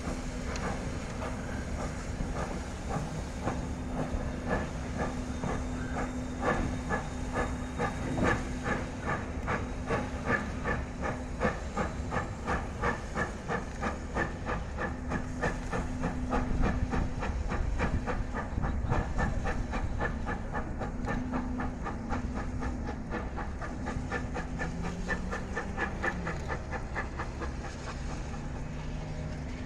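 Ww class 4-6-4T steam tank locomotive working a train, its exhaust chuffing in a quick, even beat with steam hiss. A steady engine hum runs underneath.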